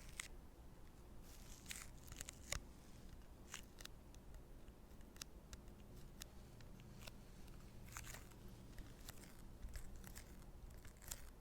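Close-miked ASMR triggers: faint, irregular sticky clicks and crackles, scattered singly through the stretch with no steady rhythm.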